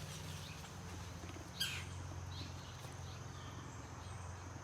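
A single short bird chirp sweeping downward, about a second and a half in, with a few fainter high chirps after it, over a faint steady low hum.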